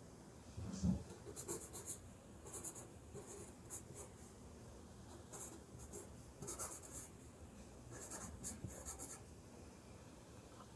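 Sharpie fine-point marker scratching across a cardboard box in short, faint strokes as words are written on it. A soft knock about a second in.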